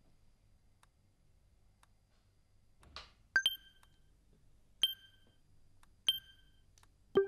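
Cutlery clinking against a ceramic plate four times, each clink ringing briefly, after a short rustle about three seconds in. Faint ticking about once a second runs underneath.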